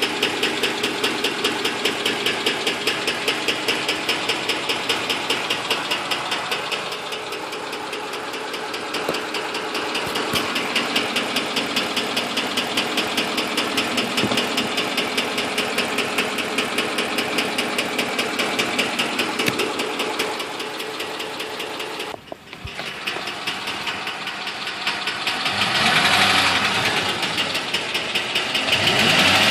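2006 Ford F-150's 5.4 L V8 running with a fast, even ticking. The owner doesn't know the cause and names an exhaust manifold leak or a VCT solenoid as suspects. Near the end the engine is revved up twice.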